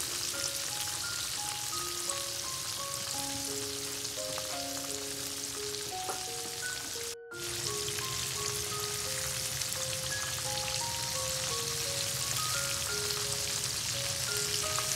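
Hot oil sizzling steadily as flour-battered oysters deep-fry in a pan, under a background melody of single held notes. The sound cuts out sharply for a moment about halfway through, then resumes.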